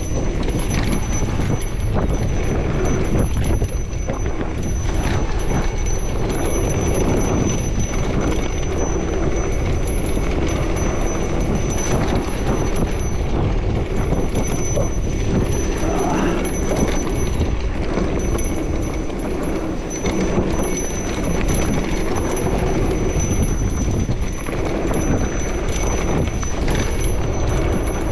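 Luna X2 electric mountain bike ridden over a rough dirt trail: a continuous clatter and rattle of the bike over bumps, with tyre and wind noise and a thin steady high tone throughout.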